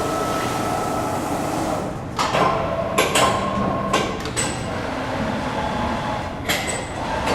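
Schechtl MAB310 CNC folding brake cycling while it bends sheet-metal coping. Its drive hums steadily, and the clamping and folding beams clank against the metal several times, about a second or two apart.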